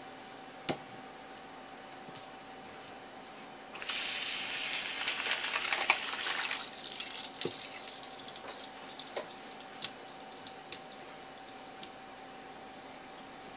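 Water running from a kitchen tap into a steel bowl of ice water for about three seconds, with a sharp knock before it and a few small splashes and clicks after it stops.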